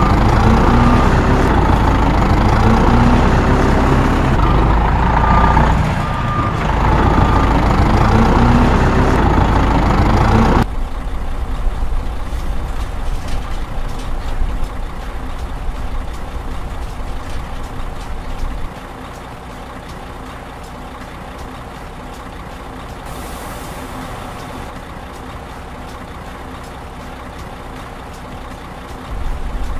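Truck engine running with a repeating reversing beeper over it. About ten seconds in the sound cuts abruptly to a quieter, steady engine rumble, which drops lower again a little before the twentieth second.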